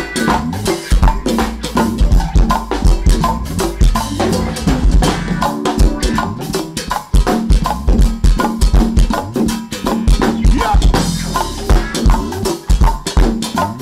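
Live band playing an upbeat instrumental groove: drum kit driving a steady beat with bass drum and snare, over a bass line and extra hand percussion.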